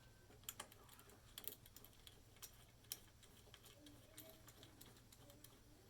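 Faint, irregular clicks and taps of metal and plastic parts being handled and set together while a windscreen riser, with its bolts and washers, is dry-fitted.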